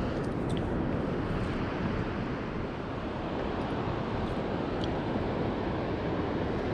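Steady rushing noise of wind and flowing river water, with a few faint ticks.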